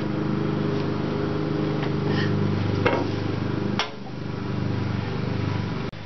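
SawStop table saw running while it cuts a 1/8-inch groove into an untreated wooden fence board, a steady hum with a sharp knock about four seconds in.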